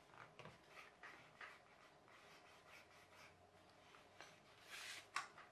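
Sheet of paper being folded by hand into a paper glider: faint rustling and rubbing as creases are pressed down, with a louder rustle and a sharp crisp snap of paper near the end.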